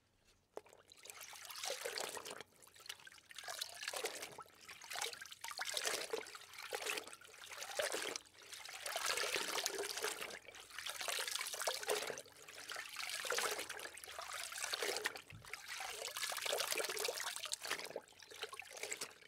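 Running water trickling and splashing, rising and falling in uneven swells.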